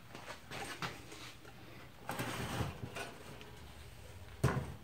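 Steel computer tower case being handled and moved on a wooden workbench: light scraping and rustling, then a single knock near the end as the case meets the bench.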